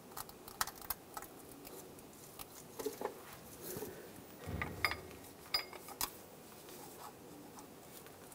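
Steel pry bar clicking and scraping against a water pump and the engine's front cover as the pump is pried loose, with a dull knock about halfway through.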